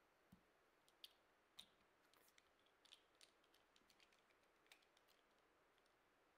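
Near silence with a dozen or so faint, scattered small clicks and ticks, the light handling of a hand-held UV torch and the fly in the vise.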